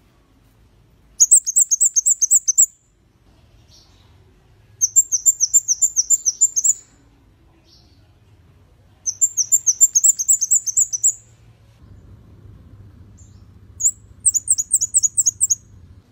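Scarlet-backed flowerpecker singing: four bursts of rapid, very high, thin notes, each burst a quick string of about eight to ten short dropping notes, a couple of seconds apart.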